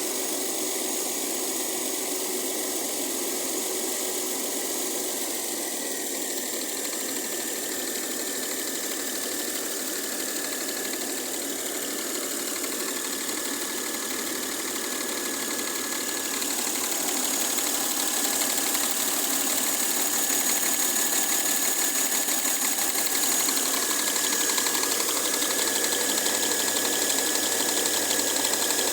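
Mercedes-Benz W212's M272 V6 engine running with a steady, fast clacking noise of unknown origin, which the owner is trying to trace. It gets louder a little over halfway through.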